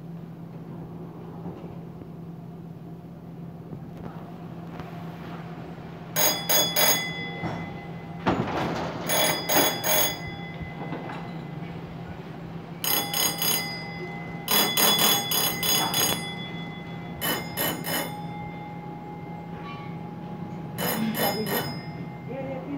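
Mine shaft signal bell at the cage landing ringing in six short bursts, a code signal to the winder as a loaded ore tub is pushed into the cage, over a steady machinery hum. A single metal knock about eight seconds in.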